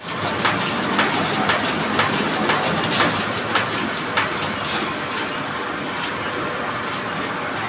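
Heavy machinery running with a steady low drone, with sharp clanks about twice a second for the first five seconds that then give way to a steadier noise.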